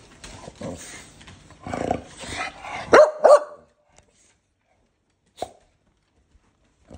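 Blue Staffordshire bull terrier giving two loud, quick barks in succession about three seconds in, after a stretch of shuffling movement. A single short knock follows a couple of seconds later.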